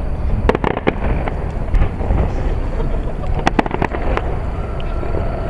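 Aerial fireworks shells bursting and crackling: two quick clusters of sharp bangs, about half a second in and again around three and a half seconds, over a steady low rumble.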